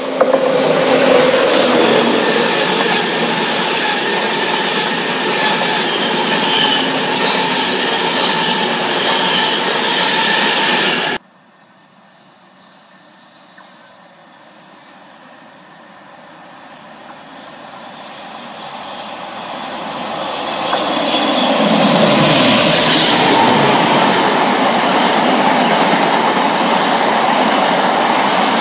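An East Coast InterCity 225 electric express passes at speed, loud and steady, then cuts off suddenly about eleven seconds in. An East Midlands Trains High Speed Train then approaches, growing louder for several seconds, and its diesel power car and Mk3 coaches rush past.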